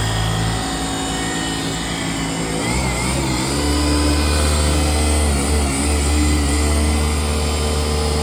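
Cordless polisher running against a plastic headlight lens, a steady motor hum that drops in pitch and gets louder about three seconds in.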